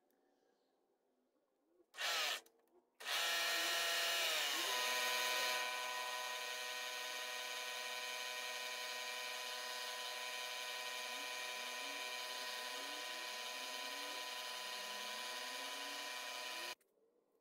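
Milling machine spindle running with an end mill working the casting: a steady whine of several pitches that slide down briefly about a second after it starts, then hold steady. It starts and stops abruptly, with a short loud burst shortly before it begins.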